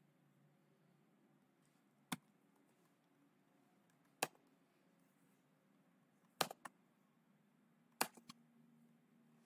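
Computer mouse clicking: two single clicks, then two double clicks, about two seconds apart, over a faint low hum.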